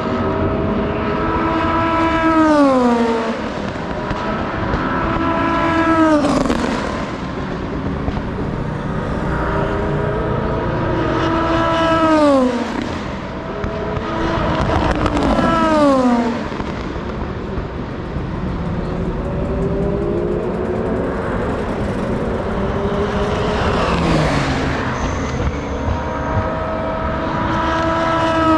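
IMSA sports-prototype and GT race cars passing one after another at full speed. Six times the engine note holds high and then drops sharply in pitch as a car goes by, over the steady noise of other cars on track.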